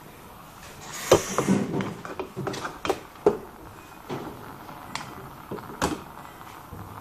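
A slotted metal spoon and a wooden spatula knocking and scraping against a stainless steel pot while noodles and vegetables are tossed, an irregular run of clinks and knocks, the loudest about a second in and a quick cluster around three seconds.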